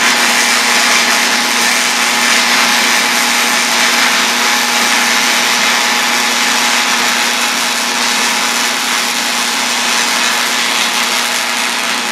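MIG welder's arc laying one continuous bead around the joint of a press-fit steel socket: a steady hiss with a faint low hum underneath.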